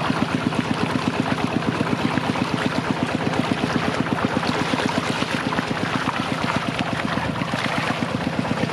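A small engine running steadily, with an even, rapid thudding of about eight beats a second.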